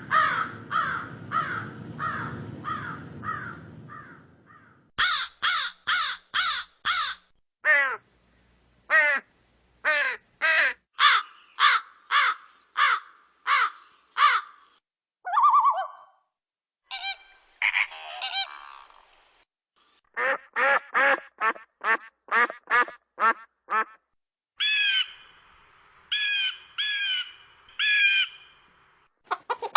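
Birds calling in a string of separate recordings: runs of short, repeated harsh calls, each run a few seconds long with short gaps between them.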